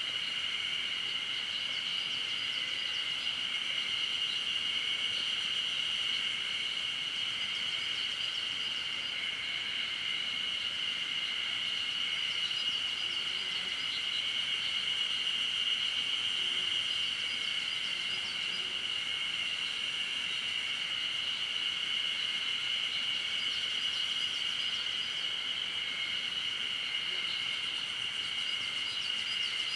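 Steady chorus of insects: a continuous, even, high-pitched drone, with faint quick chirps above it now and then.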